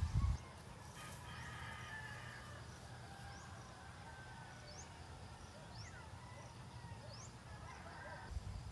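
Birds calling: a drawn-out call about a second in and another near the end, with short rising chirps from small birds in between.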